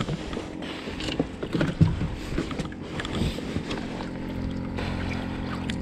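Irregular knocks, clicks and bumps of gear being handled in a fishing boat, with one sharper knock about two seconds in. From about four seconds in a steady hum of a small motor carries on under them.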